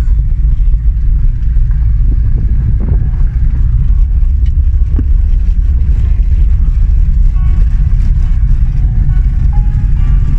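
Car driving on a dirt road, heard from inside the cabin: a steady, loud low rumble of engine and tyres.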